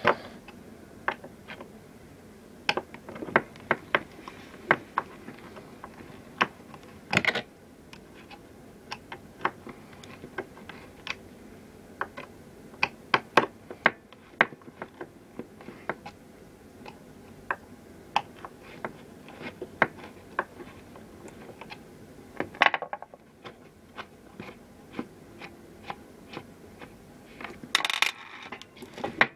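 Irregular small metallic clicks and taps of a screwdriver and skateboard truck hardware as the truck bolts and nuts are loosened, with a few longer scraping noises.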